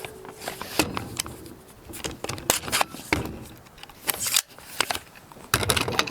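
An AR-15 rifle being handled and cleared after firing: a run of sharp metallic clicks and rattles from its action and parts being worked.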